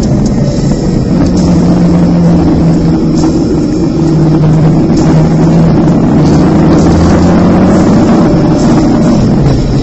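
Motorcycle engine running at a steady road speed while riding, with wind rushing over the microphone. The engine note holds level for a few seconds at a time and shifts pitch a few times.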